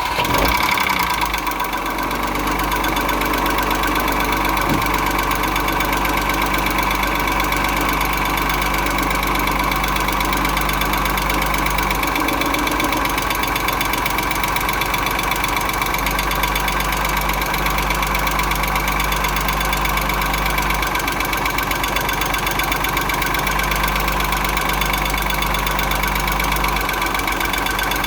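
Audi 2.6-litre V6 (engine code ABC) idling steadily just after start-up, with a knock from inside the engine that the owner is recording as a fault.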